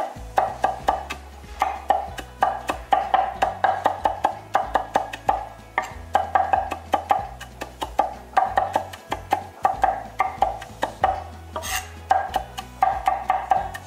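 Cleaver mincing garlic on a wooden cutting board: quick runs of sharp knocks, several a second, in short bursts with brief pauses. There is one brief scrape near the end.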